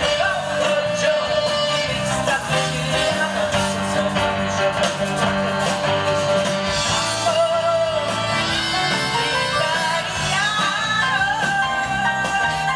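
Rock music: a singer over guitar, playing continuously.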